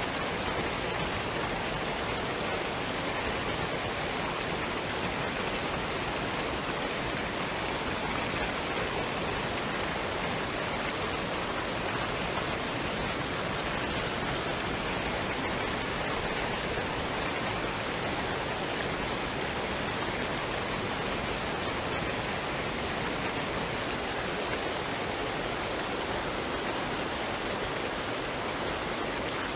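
Waterfall and stream water running in a steady, even rush.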